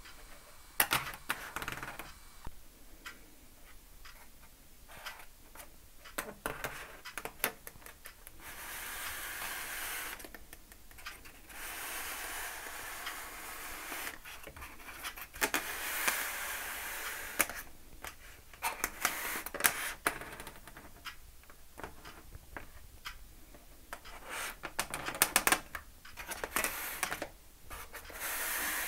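A replica prop gauntlet being handled and turned over on a newspaper-covered table: scattered clicks and knocks, with several stretches of rustling and scraping on the paper lasting a couple of seconds each.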